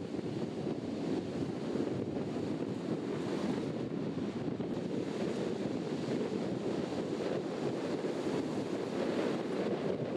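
Rough, storm-driven sea surf breaking onto a pebble beach, a steady rushing wash, with wind buffeting the microphone.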